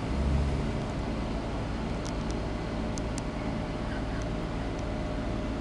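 Street traffic: a steady vehicle engine rumble, strongest in the first half second, with a few short clicks around two and three seconds in.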